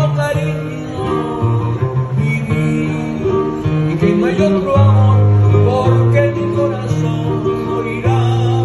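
Live acoustic guitar music, amplified, with long held bass notes underneath.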